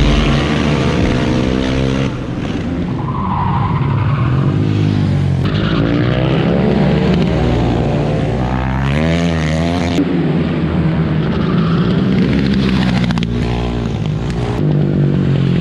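Racing motorcycle engines revving hard, the pitch climbing and dropping with throttle and gear changes as the bikes pass.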